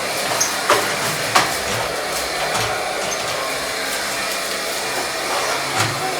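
Vacuum cleaner running steadily, with a few sharp knocks about a second in and again near the end.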